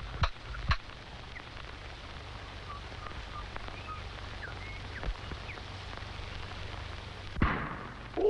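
Worn old film soundtrack with steady hiss and low hum, with a few sharp clicks in the first second and scattered faint short chirps. A single louder thump comes about seven seconds in.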